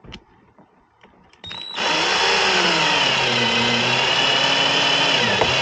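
A power drill starts about a second and a half in and runs steadily to the end, its pitch wavering a little as the trigger is worked, putting in the last fixing of a curtain rail.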